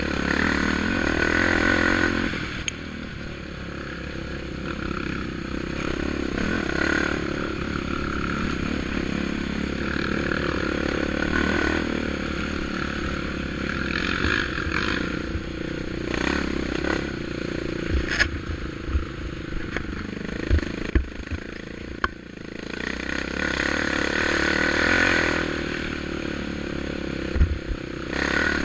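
ATV engine running and revving up and down as it is ridden, with rattling and several sharp thumps about two-thirds of the way through.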